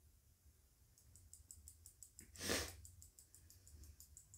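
A quiet pause with faint rustling, broken about halfway through by one short audible breath in, like a sniff.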